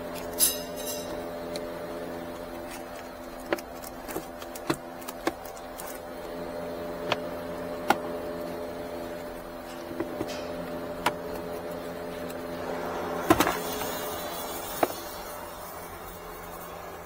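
Plastic clicks and knocks of glove box and dashboard trim panels being handled and pulled loose, over a steady low hum. The loudest knock comes about thirteen seconds in, with a rustle.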